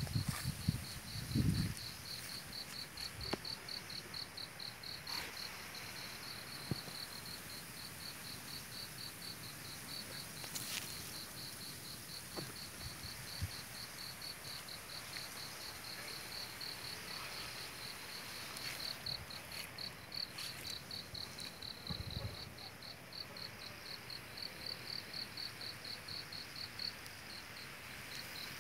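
An insect chirping steadily in a fast, even, high-pitched pulse, about three chirps a second. There are a few low thumps in the first couple of seconds and again about three quarters of the way through.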